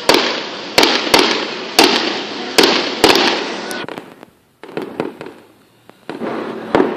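Fireworks going off in quick succession: about six sharp bangs in the first three seconds, each trailing off in a fading echo, then a lull of about two seconds with only faint cracks before the bangs start again near the end.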